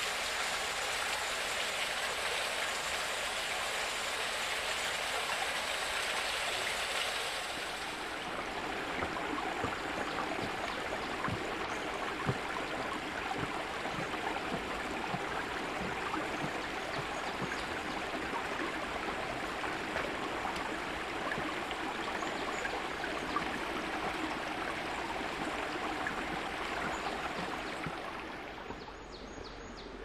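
Running water: a small waterfall and a shallow stream splashing over rocks. A brighter, hissing rush for the first seven or so seconds, then a lower, babbling flow that fades near the end.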